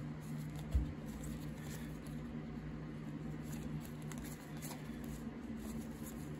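1990s basketball trading cards being handled and slid one off another: faint, soft scuffs and light ticks of card against card over a steady low hum, with one low thump about a second in.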